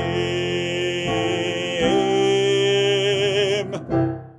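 A man holds the final sung note of a gospel-style song with a wavering vibrato over sustained backing chords, which change twice. Almost four seconds in the music stops, a short last chord sounds, and it dies away.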